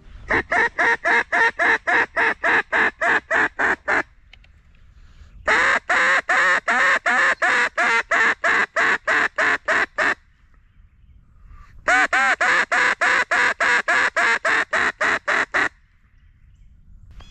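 Duck quacking in three long runs of evenly spaced quacks, about four a second, each run lasting about four seconds with short pauses between.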